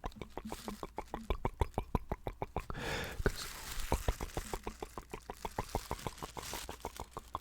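Rapid, even clicking at about seven clicks a second, with brief bursts of crinkling rustle about three seconds in and again near the end.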